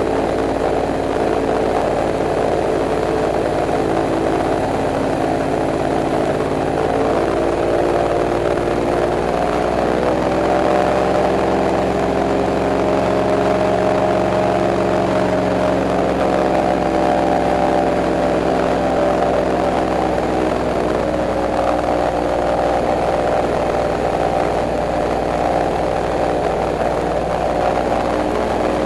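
Airboat engine and propeller running loud and steady underway. The engine note rises about a third of the way through and eases back down about two-thirds of the way through.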